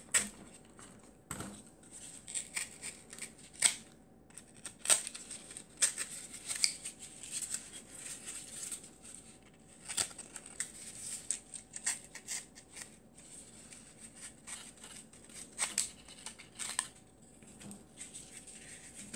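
Scissors cutting scrap cardboard: a string of irregular sharp snips and crunches, with the cardboard rustling as it is handled between cuts.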